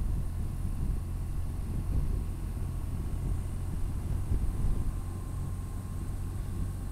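Motorcycle cruising at a steady road speed: a constant low rumble of engine and road noise, unchanging throughout.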